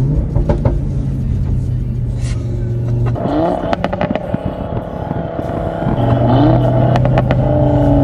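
Audi RS3's stage-2-tuned turbocharged 2.5-litre five-cylinder heard close at the exhaust, pulling with a steady drone, then easing off for a few seconds with a run of sharp exhaust pops and crackles, then pulling steadily again.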